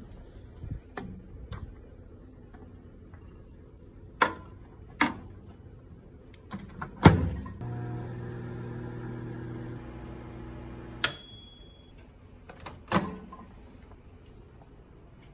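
Countertop microwave oven with a mechanical timer dial: a few knocks and a loud clunk of the door shutting, then the oven hums steadily for about three seconds. Its timer bell dings once, and a moment later the door clunks open.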